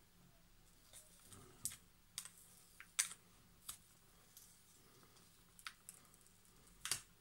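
Scattered sharp clicks and light taps from fingers handling a laptop LCD panel and its plastic lid, working at the adhesive tape that holds the screen. The loudest click comes about three seconds in, another near the end.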